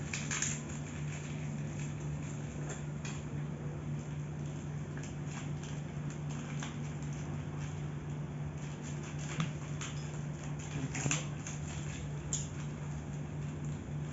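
Plastic packaging film being torn, crinkled and cut with scissors, in scattered crackles and snips. A steady low hum runs underneath.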